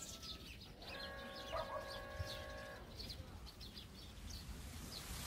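Faint birdsong of scattered short chirps from small birds. About a second in, a drawn-out, even-pitched call or tone is held for nearly two seconds.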